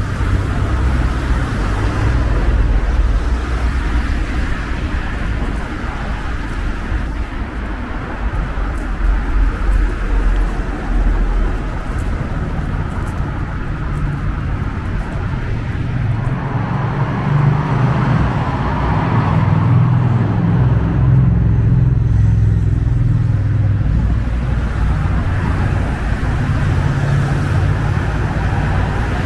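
Road traffic on a city street: the low rumble of car and van engines and tyres, with one vehicle passing close and louder between about 16 and 22 seconds in.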